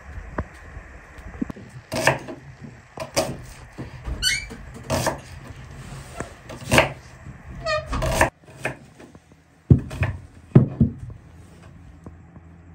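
Kitchen knife cutting an onion on a wooden cutting board: a series of irregular knocks on the board.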